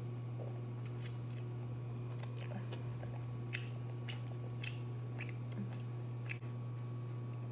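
Close-up mouth sounds of a person eating a bone-in chicken wing: short, irregular wet clicks and smacks from biting meat off the bone and chewing. A steady low hum runs underneath.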